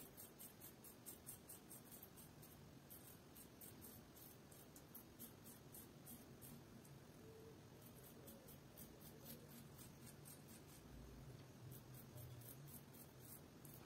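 Faint, quick scratching strokes of a Yaqi double-edge safety razor cutting stubble on skin slicked with aloe vera gel, about three to four strokes a second. The strokes come in runs: a long run at first, then a lull in the middle, then another run near the end.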